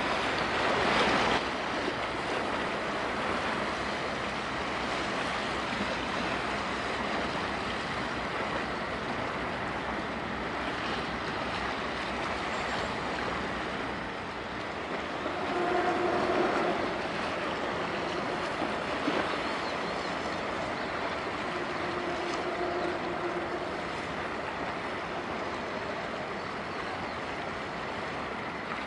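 Steady rush of waves and wind over open water. A faint humming tone comes and goes twice, about halfway through and again about three-quarters through.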